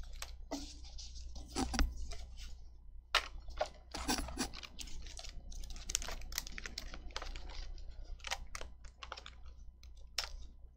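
Clear plastic 2x2 coin pages in a three-ring binder crinkling and rustling as they are handled, with many quick irregular clicks and taps, over a steady low hum.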